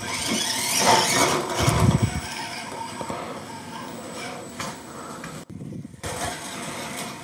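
Micro RC rock crawler's small electric motor and gears running with a faint high whine as it climbs a slatted wooden ramp, its tires scraping and bumping over the wooden edges.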